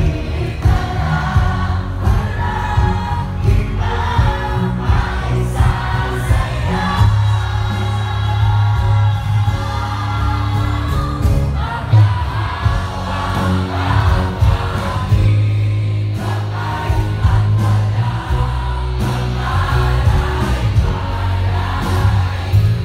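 Live pop music played loud through a stage PA system: singers on microphones over a heavy bass and drum beat, with many voices singing along.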